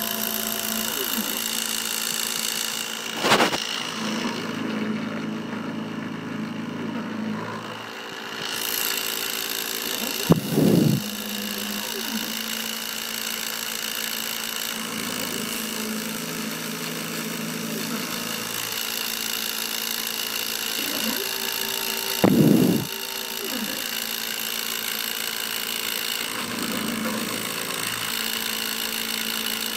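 Small CNC engraving machine cutting copper sheet: a steady spindle whine with a lower motor hum that comes and goes as the bit moves, and three brief louder surges. The spindle runs at a speed too slow for copper.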